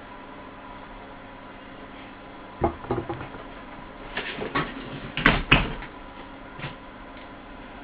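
Several short knocks and clatters, like hard objects being handled and set down. They come in two quick clusters a little over a second apart, the loudest about five seconds in, then one last knock, over a faint steady hum.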